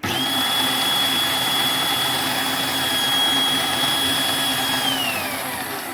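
Razor Power Core E95 electric scooter's hub motor starting suddenly and running with a steady high whine, then spinning down with a falling pitch near the end. It is running on a newly replaced controller relay.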